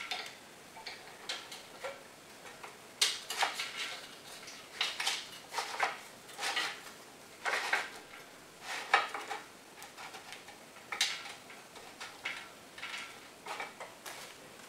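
Plastic rope-guide liner band being pushed by hand around a wire rope hoist drum, under the steel rope guide ring: irregular light clicks and scrapes of plastic against metal.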